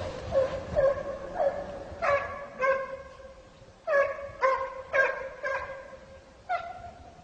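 Scent hound baying on the trail of a hare: a run of short, high yelping barks, about two a second at first and then more irregular, growing fainter near the end as the hound moves away.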